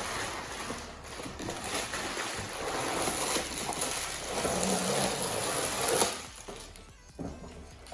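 Plastic packaging rustling and crinkling as an item is unwrapped, loudest about six seconds in, then quieter.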